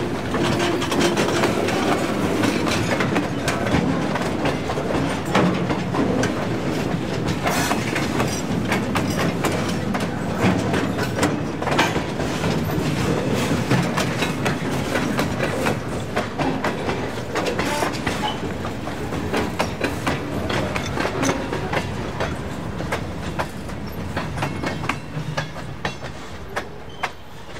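Log train's railcars rolling slowly past on jointed rail, the wheels clicking and clacking over the rail joints; the sound grows fainter near the end.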